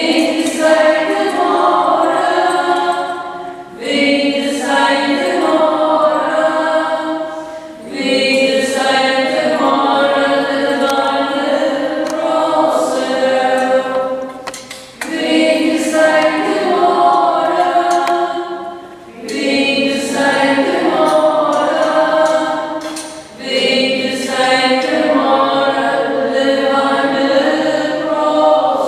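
A choir singing a hymn, in sung phrases of about four seconds each with short breaks between them.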